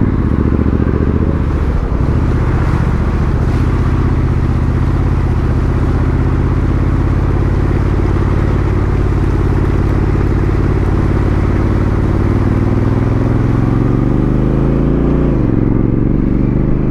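Honda Africa Twin CRF1100L's parallel-twin engine running at road speed over a steady rush of wind and road noise. About twelve seconds in, the revs climb, then drop sharply a few seconds later at a gear change.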